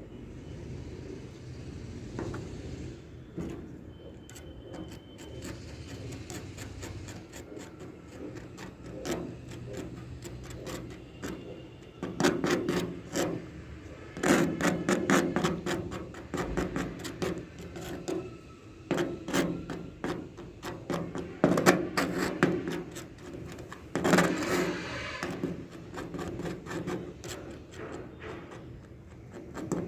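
Hand-tool work on a metal repair: irregular scraping and tapping strokes, sparse at first and coming thick and louder from about twelve seconds in.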